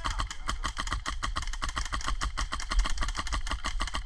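HPA-powered airsoft rifle firing full-auto, a steady rapid string of sharp pops at about ten shots a second, with a low rumble of wind on the microphone underneath.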